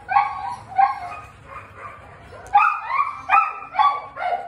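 German shepherd dog barking: a run of short, high-pitched barks, about eight of them, coming faster and louder in the second half.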